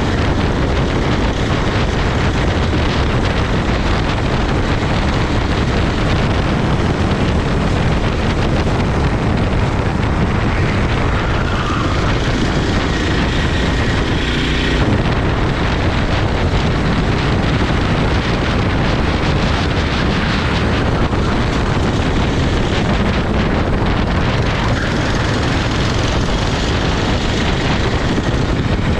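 Racing kart engine running flat out along the track, with heavy wind buffeting on the microphone.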